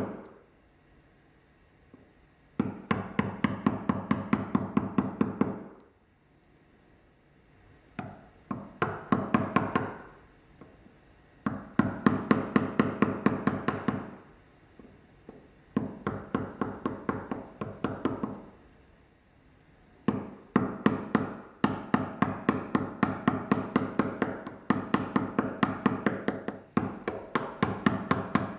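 Rapid light hammer taps on a chisel, cutting a mortise in hardwood for a bronze gudgeon. The taps come about six a second in runs of two to three seconds, with short pauses between; the last run is longer.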